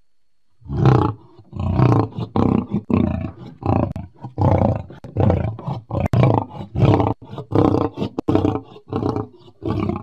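Lion roaring: a long series of short, loud, low roars, about two a second, beginning about a second in.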